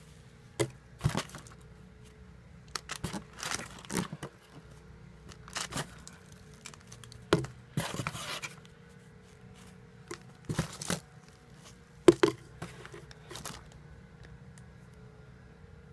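Squishy foam toys and their plastic wrappers being handled and rummaged through in a cardboard shipping box: irregular crinkling, rustling and scraping, about a dozen short bursts with pauses between, over a faint steady hum.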